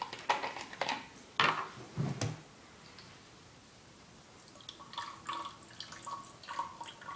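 A plastic toy water gun gives several sharp clicks and knocks as it is handled, the loudest about one and a half seconds in. From about five seconds in, water trickles and splashes as it is poured from a bottle into the gun's reservoir to refill it.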